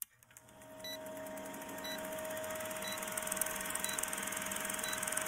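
Vintage film-countdown sound effect: a film projector's steady fast rattle with film hiss and a low hum, fading in over the first second, with a small short beep marking each second.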